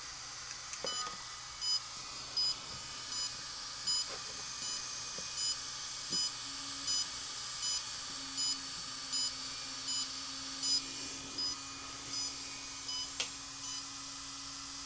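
Walksnail digital FPV kit beeping in pairing mode: a steady train of about fifteen short beeps, roughly one every three-quarters of a second, which stops near the end. A faint steady hiss runs underneath, with a sharp click shortly after the beeping stops.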